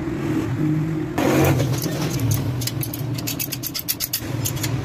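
Rapid light metallic clicks and clinks, starting about a second in, as the chrome exhaust header pipe and its nuts are fitted by hand to the Honda CG 125's cylinder head, over a steady background engine hum.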